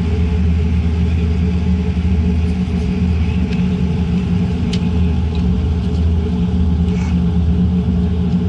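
Boeing 787-9 cabin noise: a steady low rumble of engines and airflow, with a few light clicks.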